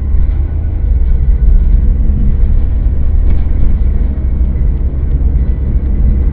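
Car cabin noise picked up by a dashcam microphone while driving: a steady, loud low rumble of engine and tyres on the road.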